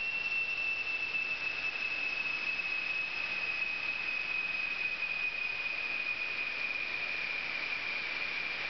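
Inergen inert-gas fire-suppression system discharging: a steady hiss of escaping gas with a high whistle that sinks slowly in pitch.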